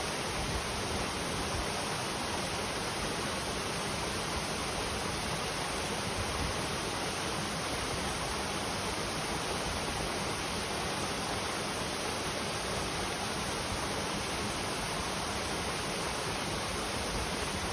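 Clear mountain stream flowing: a steady, even rush of water over rocks.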